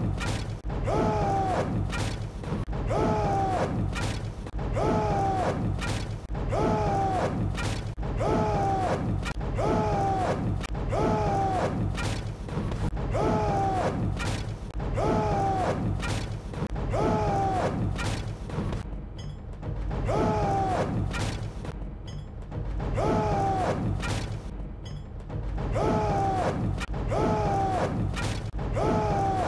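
A massed army of men shouting a chant in unison about once a second, each shout falling in pitch, with thumps in time with it and a few short pauses in the second half.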